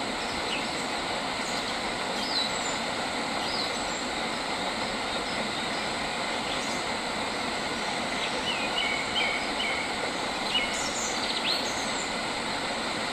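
Small birds chirping in short calls, with a quick run of repeated notes about two-thirds of the way through, over a steady rushing background noise.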